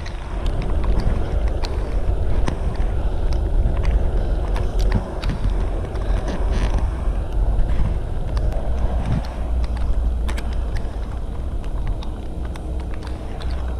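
Wind buffeting the microphone, a steady low rumble, with scattered faint clicks.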